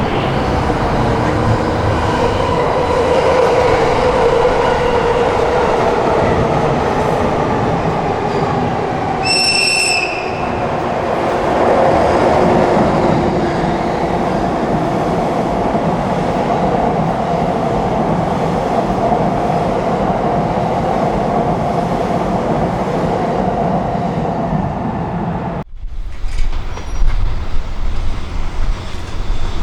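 EF64 electric locomotive and its train running past with steady rumble and wheel noise, and one short, high AW-2 air whistle blast about nine seconds in. Near the end the sound cuts abruptly to an uneven, fluctuating rumble.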